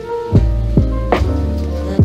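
Background music with a steady beat: drums over a deep bass line and sustained melodic tones.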